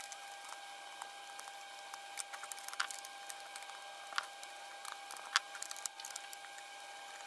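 A 5/16 inch wrench and a screwdriver snugging up the screws and nuts that hold a glow cup to a plastic battery box: scattered light clicks and scrapes of tool on hardware. A faint steady high hum runs underneath.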